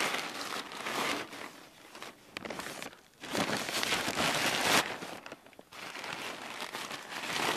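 Plastic greenhouse sheeting rustling and crinkling as it is pulled open by hand, in several bursts with short pauses between.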